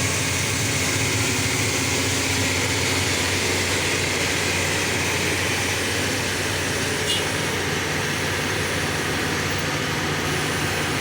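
Kobelco SK330 excavator's diesel engine running steadily under load, a loud even drone, with a faint click about seven seconds in.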